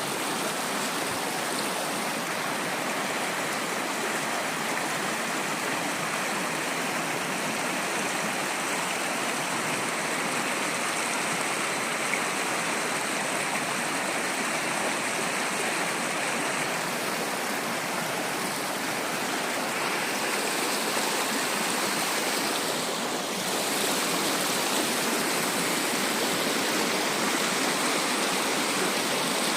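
Mountain stream rushing steadily over rocks, a constant even rush of water that grows a little louder about two-thirds of the way through.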